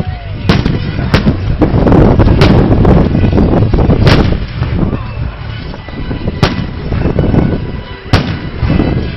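Fireworks display: aerial shells bursting in a dense barrage, with about six sharp, loud bangs standing out over a continuous low rumble of further bursts.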